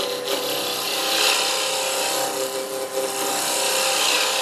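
Heavy scraper cutting into a spinning wooden blank on a wood lathe: a steady, rough scraping hiss over the steady hum of the running lathe.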